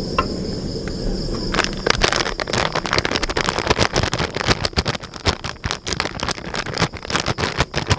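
Plastic spice sachet crinkling and rustling as curry powder is poured from it into a bowl: a dense run of crackles that starts about a second and a half in, over a steady high chirring of crickets.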